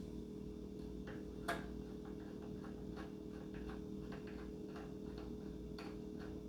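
Scattered light clicks and taps of small parts and tools being handled during model-plane assembly, with one sharper click about a second and a half in, over a steady low hum.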